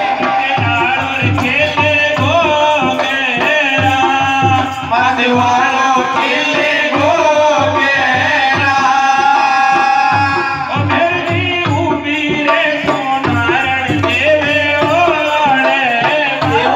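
Devotional folk singing of a kirtan: a voice carrying a wavering melody over steady hand-drum beats.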